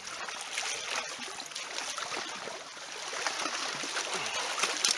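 Choppy lake water lapping and splashing against shoreline rocks, with small trickling and gurgling sounds and a sharp click near the end.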